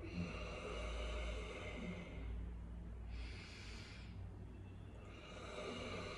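A person snoring on purpose with lips closed and jaw pushed forward, as an anti-snoring exercise: a long, low snore, a short rush of breath about three seconds in, then another snore starting near the end.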